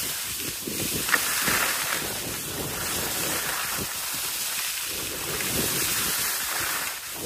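Skis sliding and scraping over packed snow, the hiss swelling and fading in surges, with wind rushing over the microphone. A brief sharp click sounds a little over a second in.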